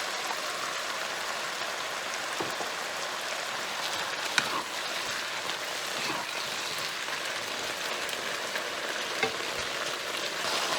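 Chicken and vegetables sizzling in a hot pan, a steady frying hiss with occasional light clicks of a utensil stirring.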